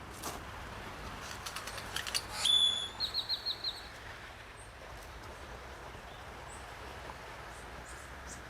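A bird calling: one held high whistled note, then a quick series of about five short notes, over faint outdoor ambience.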